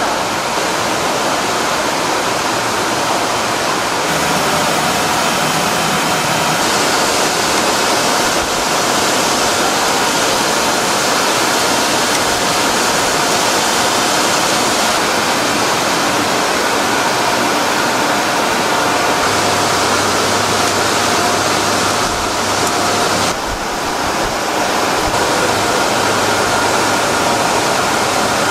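Steady rushing noise of an industrial eel-grilling conveyor line running under its exhaust hoods, with faint steady machine hum tones in it.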